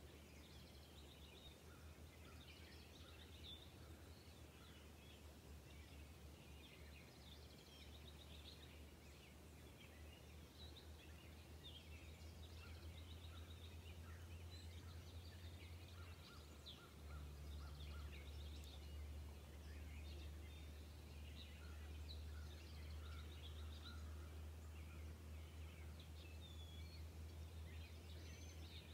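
Faint chirps and trills of small birds throughout, over a low steady rumble.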